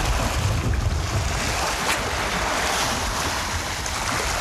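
Strong gusting wind buffeting the microphone with a heavy uneven rumble, over the noise of choppy reservoir water breaking in waves.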